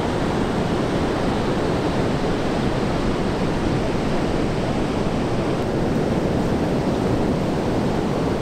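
Steady rush of breaking ocean surf.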